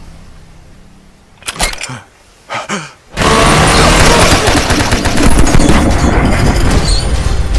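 Sustained automatic gunfire from a machine gun, starting suddenly just over three seconds in and firing without a break. Before it there are a couple of brief sharp sounds.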